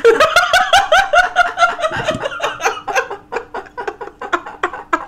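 Laughter: a long run of quick, high-pitched giggles, loudest at the start and gradually tapering off.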